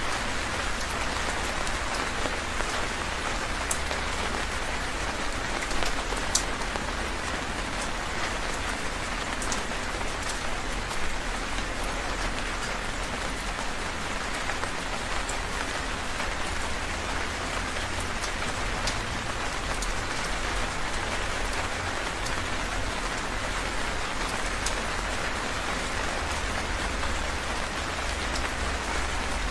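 Heavy rain falling steadily, an even hiss with individual drops ticking and pattering on surfaces.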